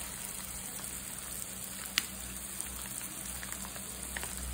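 Onion, tomato and spice masala frying gently in a kadai on a low flame: a soft, steady sizzle with scattered small crackles, and one sharp click about two seconds in.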